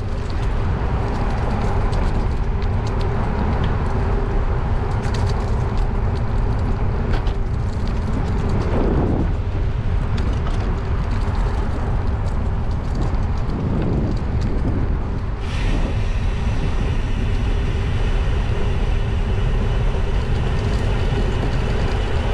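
Steady rushing wind noise over the microphone, mixed with the tyre and road noise of a bicycle rolling along a paved trail.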